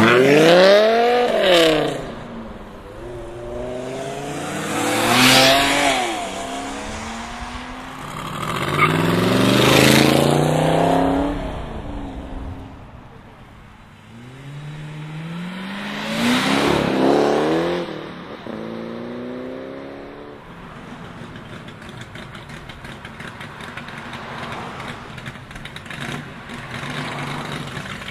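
Performance car engines revving hard in about four loud surges, each rising sharply in pitch and falling back, then a quieter steady engine note for the last several seconds.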